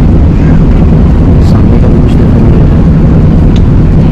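Airbus A380 heard from inside the passenger cabin: a loud, steady low rumble of engines and airflow, with a few faint clicks.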